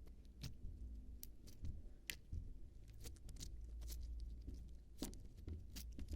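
Stiff slime being squeezed and worked by hand, giving faint, irregular clicks and pops.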